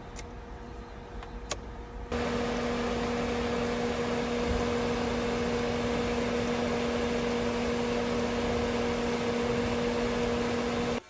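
A few faint ticks, then about two seconds in a machine starts up with a steady hum and hiss. It runs evenly and cuts off suddenly just before the end.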